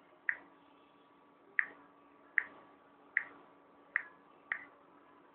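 Key presses on a Samsung Galaxy Pocket's touchscreen keyboard while typing a search: six short, sharp clicks, about one a second, the last two closer together.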